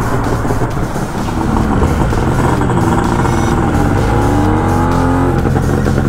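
Motorcycle engine accelerating under steady wind rumble, its note rising for a few seconds and then breaking off about five seconds in, as at a gear change.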